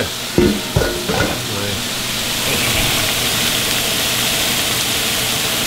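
Skin-on channel catfish fillets frying in hot fat as the skin crisps, with a steady sizzle that grows stronger partway through. Two knocks come near the start.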